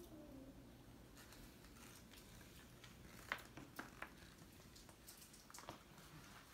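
Near silence in a quiet room, broken by a few faint scattered clicks and rustles, the sharpest about three seconds in.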